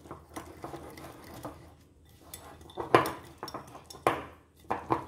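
Wire whisk beating thick cake batter in a glass bowl, clinking and scraping against the glass in an irregular rhythm, with several sharper clinks in the second half.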